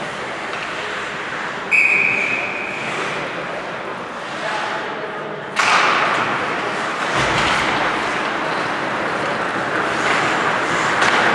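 Ice hockey rink din with skating and play on the ice. About two seconds in comes a brief high ringing tone lasting about a second. Past the halfway point the noise jumps suddenly and stays louder, as the crowd and players react during a scramble in front of the net.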